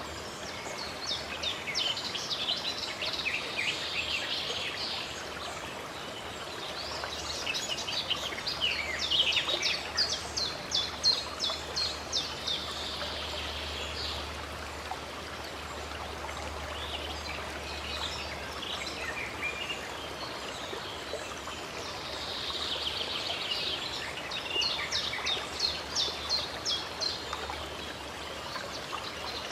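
Songbirds singing in bursts of rapid chirping phrases, four times over, above a steady rush of running water.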